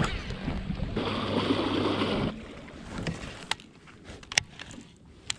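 Baitcasting reel being cranked to retrieve a crankbait, a steady whir of the spool and gears that stops after about two seconds. A few light ticks and knocks follow.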